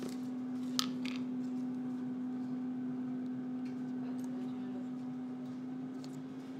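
A steady low electrical hum from a kitchen appliance, with a couple of sharp clicks about a second in and a few faint ticks later.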